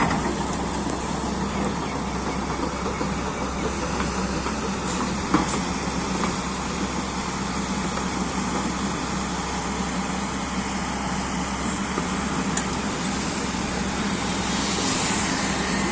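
A machine's engine running steadily, with a few sharp knocks.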